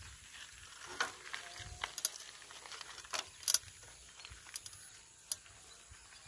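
Irregular sharp clicks and ticks, about seven of them, the loudest about a second in and a close pair about three and a half seconds in, over faint outdoor background.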